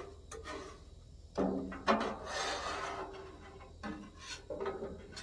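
A scraper pushed across a Blackstone steel griddle top in several uneven strokes, rasping through sticky, gooey cooked-on residue as the griddle is cleaned.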